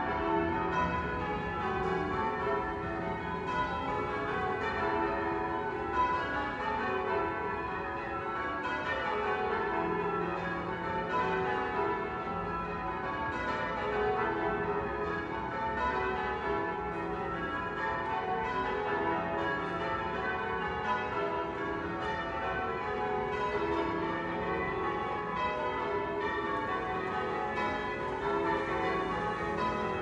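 Church tower bells being change-rung: a continuous run of overlapping bell strikes whose order keeps shifting, each note ringing on into the next.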